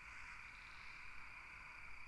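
Faint outdoor night ambience: a steady, high-pitched chorus that keeps on without a break.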